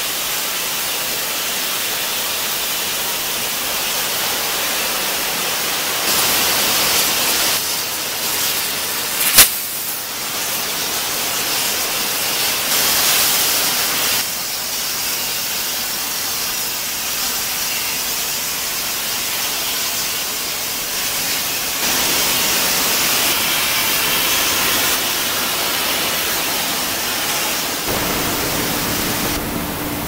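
Steady hiss and rush of steelworks machinery, changing in level and character at several cuts. A single sharp crack about nine seconds in.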